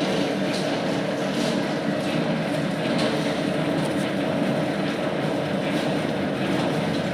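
Lathe running with its spindle turning under gear drive: a steady mechanical hum of the motor and headstock gears, with no cut being taken yet.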